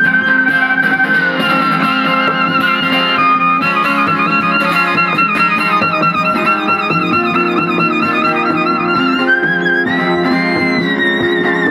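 Violin playing a melody of held, wavering notes with vibrato over a strummed steel-string acoustic guitar.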